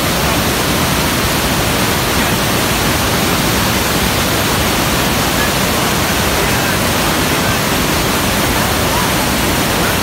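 The Rhine Falls heard close up: a loud, steady roar of water crashing and churning.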